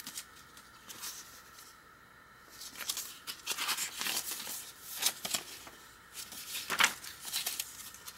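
Paper pages of a handmade journal being turned by hand: a run of dry paper rustles and swishes that starts about three seconds in, the loudest near the end.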